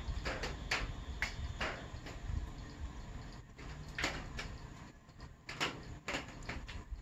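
Separate sharp knocks and clatters, irregularly spaced about a second apart, as wooden hive-box boards and a claw hammer are handled on a workbench.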